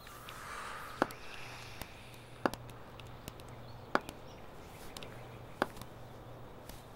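Slow, even footsteps of hard-soled shoes: sharp taps about every three-quarters of a second, alternating louder and softer, over a faint low hum.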